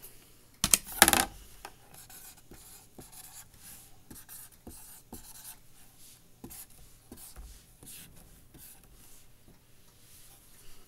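A marker writing on paper in many short, irregular strokes. About a second in there is a loud rustle and knock as the card is handled and set down.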